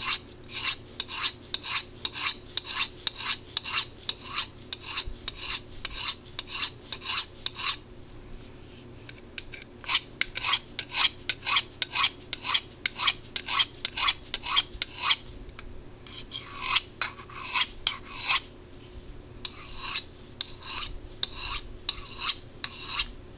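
A 440 stainless steel knife edge drawn freehand in quick strokes along a rough-grit ceramic sharpening rod, making a scraping hiss about two or three times a second. The strokes come in four runs with short pauses between. This is the coarse stage of re-sharpening a dulled edge.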